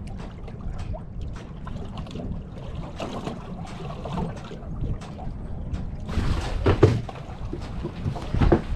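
Wind rumbling on the microphone in a small fishing boat, with scattered knocks and handling noises; a louder cluster of knocks comes about six to seven seconds in.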